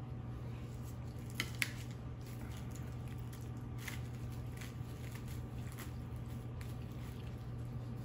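Faint crinkling and a few light clicks from plastic gloves and cling film as carrot and daikon strips are picked from a wrapped bowl, two sharper clicks about a second and a half in, over a steady low hum.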